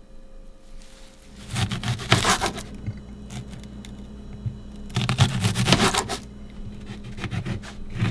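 Knife slicing through an onion on a plastic cutting board: two runs of quick cuts, about a second and a half in and again about five seconds in, with another run starting at the very end as the knife goes into a lemon. A steady low hum sits under it from about a second in.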